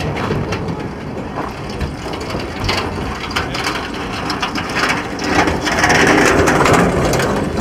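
Hand truck rolling and rattling across packed, frozen snow, with footsteps crunching in the snow; the rattle grows loudest as the cart passes close about two thirds of the way through.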